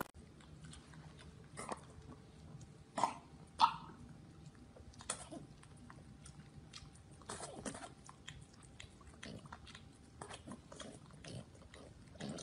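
A French bulldog licking an ice pop, with a man licking his own alongside: a continual run of short wet licks and smacks, with two louder sounds about three and three and a half seconds in.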